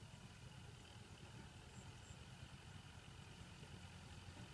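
Faint, steady low rumble of a distant tractor engine running, with a couple of faint high chirps about two seconds in.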